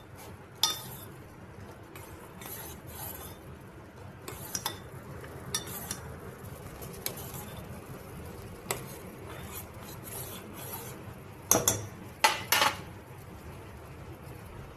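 A spoon stirring in a pan of boiling kadha (herbal decoction), clinking lightly against the pan, with a few louder knocks about twelve seconds in. A low steady background runs underneath.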